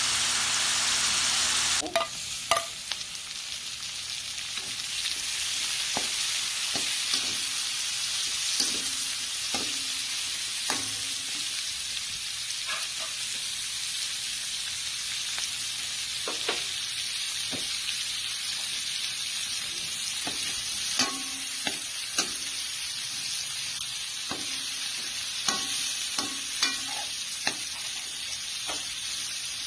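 Pork and vegetables sizzling in a wok while a metal ladle stirs them, with scattered clinks and scrapes of the ladle against the pan. The sizzle is louder for the first two seconds, then drops to a softer, steady frying hiss.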